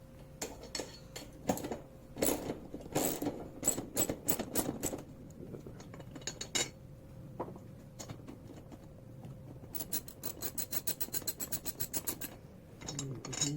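Metal clinks and knocks of a socket wrench working a 6 mm Allen bolt on a scooter's rear grab bar, then a quick, even run of ratchet clicks for about two seconds near the end as the freed bolt is spun out.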